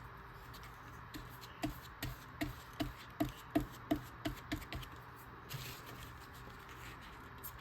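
Light clicking and tapping of hands working with paper and tools: about a dozen short clicks in a quick, fairly even run of roughly three a second, over a faint steady hiss.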